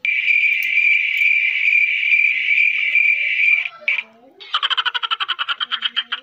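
Added animal-call sound effect of insect- or frog-like calls: a steady high buzz for about three and a half seconds, then, after a short break, a fast pulsing trill of about a dozen pulses a second.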